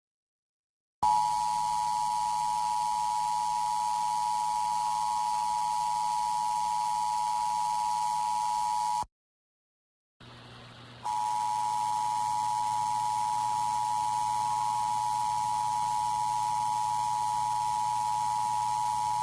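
Emergency Alert System attention signal: the two-tone alert tone (853 and 960 Hz together) held steady for about eight seconds, then after about a second of silence sounded again for another eight seconds, this time over a low hum.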